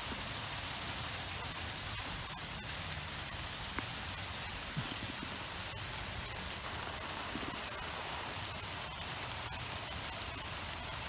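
Hail falling steadily on a wooden deck and its railing: a continuous hiss of many small ticks.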